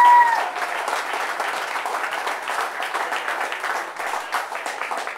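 Crowd clapping in applause, with a single whoop right at the start; the clapping thins out near the end.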